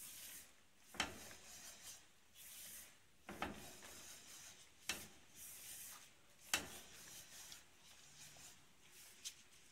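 A spoon stirring and scraping thick semolina halwa around a pan, faint, with several sharp knocks of the spoon against the pan. The halwa is thickening toward the stage where it comes away from the pan's sides.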